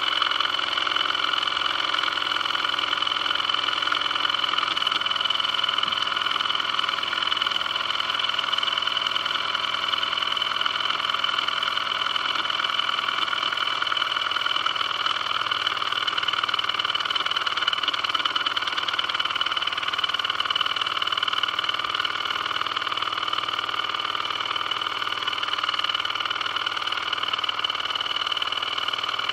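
Small toy live-steam engine running steadily at speed, with a fast, even beat from its cylinder and flywheel.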